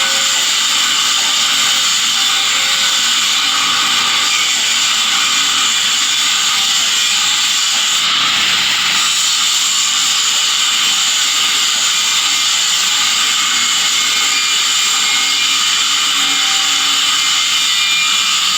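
Welding arc hissing steadily without a break.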